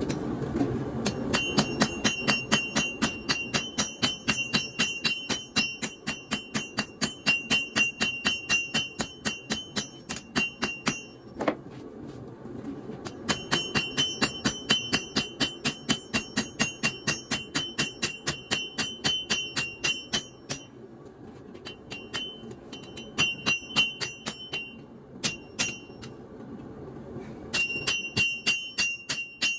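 Hand hammer blows on an anvil at about four to five a second, each with a bright metallic ring, in long runs broken by short pauses: leaf spring steel being forged into a knife blade.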